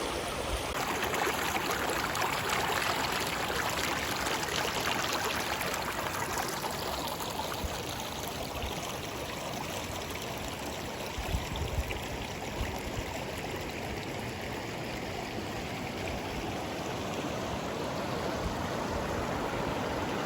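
River water rushing over rocks in a steady, even hiss, the sound of a shallow rapid or riffle. A couple of brief low bumps about halfway through.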